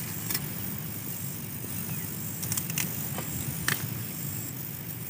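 A fence net being cut with a hand-held farm grass-cutting tool: a handful of short, sharp clicks scattered over a steady low rumble.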